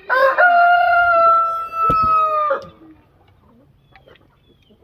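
A rooster crowing: one long, held cock-a-doodle-doo of about two and a half seconds that sags slightly in pitch at the end. A single sharp click comes partway through.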